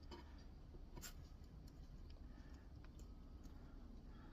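Near silence with faint light clicks and scraping from hand work, the clearest click about a second in.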